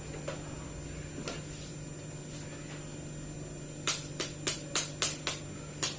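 A quick run of sharp smacks, about three to four a second, starting about two-thirds of the way in over a faint steady hum.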